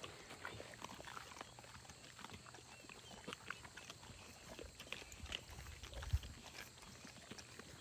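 Mastiff dogs eating raw chicken, a faint irregular run of crunches and clicks as they chew through the bones, with one low thump about six seconds in.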